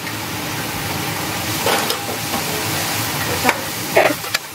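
Spinach, onion and sweet corn sizzling in ghee in a non-stick frying pan as they are stirred with a metal slotted spoon, the steady sizzle broken by a few short scrapes and taps of the spoon on the pan.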